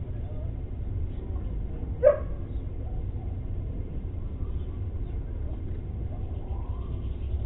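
A steady low rumble, broken by a single dog bark about two seconds in. Near the end a faint police siren wail begins to rise.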